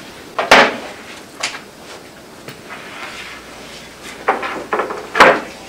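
Large wooden sled base panel being handled and flipped over on a table saw's table, knocking against the top: two loud knocks, about half a second in and near the end, with a few lighter bumps between.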